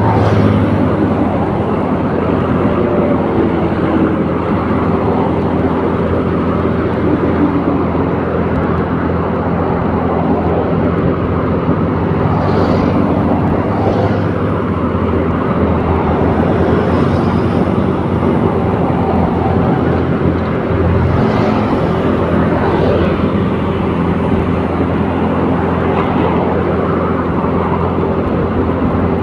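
Steady engine drone and road noise from a vehicle moving along at a constant pace, with no let-up.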